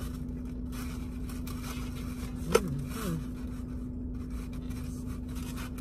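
A steady low hum with a constant tone runs throughout. About two and a half seconds in there is one sharp click, followed by a brief murmur from a voice.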